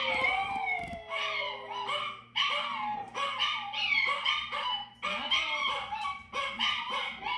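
Dogs howling and yipping together in a run of short calls that rise and fall in pitch, a few every second. A long drawn-out falling note dies away about two seconds in.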